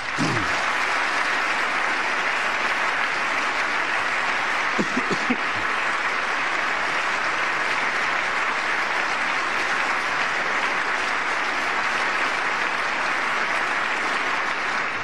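Large audience applauding steadily after an applause line in a speech. The clapping starts abruptly and dies away near the end.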